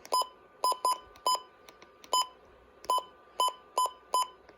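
About nine short electronic beeps at one pitch, spaced irregularly, with a faint hiss between them.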